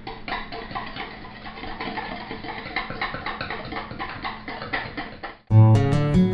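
A wire whisk beating chocolate pudding mix and milk in a mixing bowl: a quick, steady run of light clicks and taps. About five and a half seconds in it cuts off, and louder acoustic guitar music starts.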